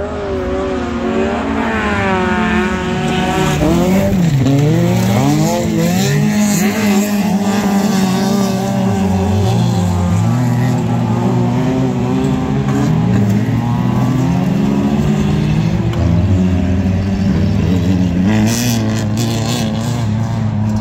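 Several small-engined autocross cars (1400 cc class) racing on a dirt track, their engines revving at full throttle, with pitch rising and falling through gear changes and corners. The sound grows louder over the first few seconds as the pack approaches, then stays loud as the cars slide through the corner close by.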